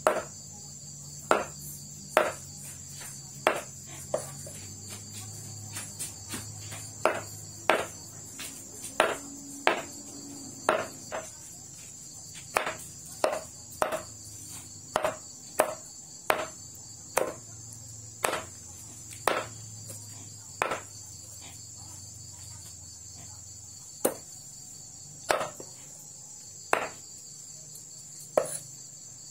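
Heavy cleaver chopping chicken offal on a thick round wooden chopping block: sharp knocks at an uneven pace, one or two a second, with short pauses. Behind them a steady high chirring of crickets.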